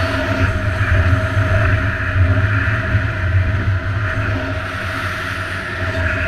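Snowmobile engine and track running steadily at speed, heard from the rider's helmet.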